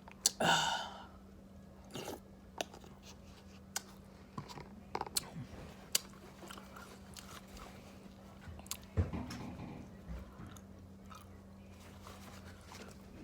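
A person chewing a mouthful of rice, eggs and sausage close to the microphone, with scattered wet mouth clicks and smacks. There is a louder noisy sound about half a second in and a low throaty sound about nine seconds in.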